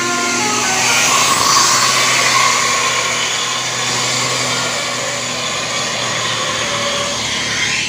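A Basuri musical bus horn finishes a descending stepped tune in the first half second. Then a tour bus runs loudly past as it climbs, its engine mixed with a hissing, whooshing air noise, and a short rising whine near the end.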